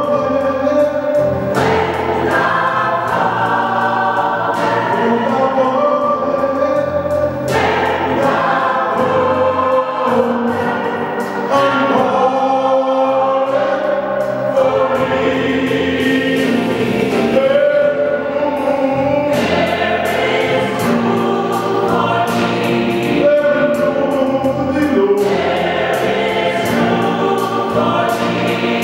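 Gospel choir singing a Christmas song in full harmony, with frequent sharp percussive hits through the music.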